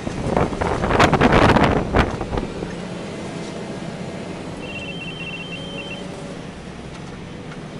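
Fire engine cab while driving, with the engine running as a steady low hum. A loud burst of clattering noise fills the first couple of seconds, and a quick run of short high beeps sounds about five seconds in.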